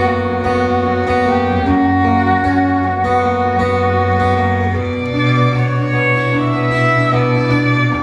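Live instrumental music: a violin plays the melody over a strummed acoustic guitar. A low bass note is held underneath and changes pitch about five seconds in.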